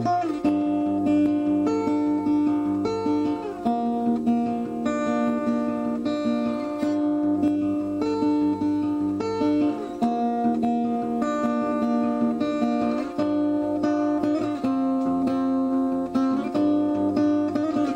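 Background music: a strummed acoustic guitar tune with sustained, changing chords.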